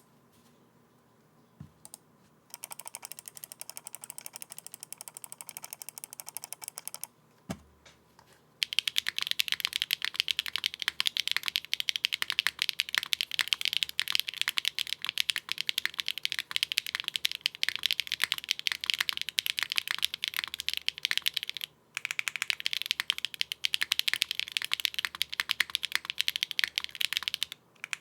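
Fast typing on a mechanical keyboard with Keykobo Alhambra keycaps over HMX Sunset Gleam switches soldered plateless: a dense clacking of keystrokes. It is softer for a few seconds at first, then louder and busier from about a third of the way in, with a brief pause later on.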